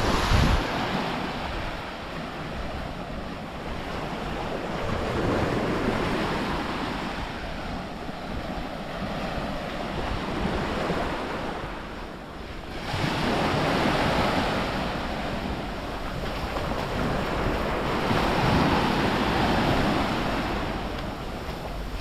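Waves breaking and washing up a beach, surging and ebbing every few seconds, with wind rumbling on the microphone in a gust just at the start.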